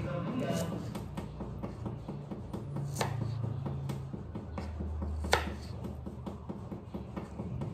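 Kitchen knife chopping onion on a cutting board: a run of quick, steady taps of the blade, with two sharper knocks about three and five seconds in.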